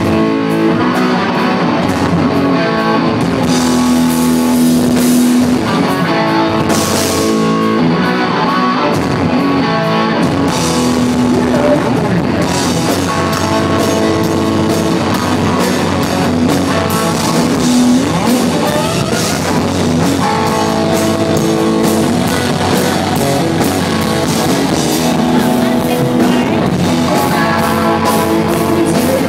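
Live rock band playing: electric guitar over a drum kit, loud and steady, with no singing.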